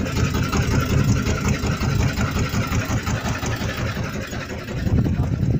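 Fishing boat's engine running steadily, a dense low rumble.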